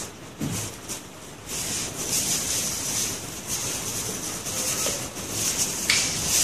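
A gloved hand and stick rubbing and scraping over solar panel glass, spreading epoxy over the cracks in uneven strokes, with a sharp click near the end.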